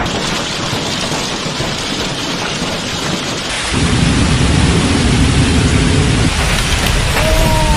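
Torrential rain pouring down in a storm, a steady loud hiss. About three and a half seconds in, a heavy low rumble joins the rain.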